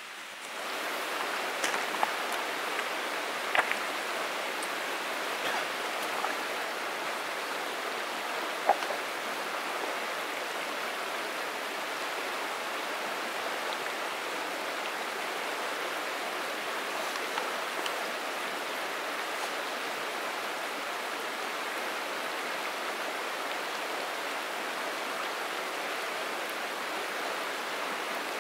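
Steady rush of a flowing stream, fading in at the start and holding even throughout, with a few sharp clicks in the first nine seconds.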